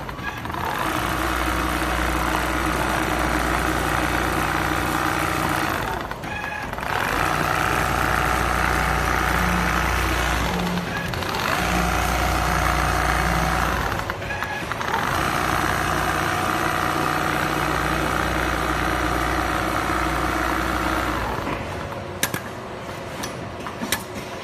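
Richpeace computerized non-stop sewing machine with a rotary head, stitching a quilted panel: a steady machine drone that briefly drops away several times. Near the end it falls quieter, with a few sharp clicks.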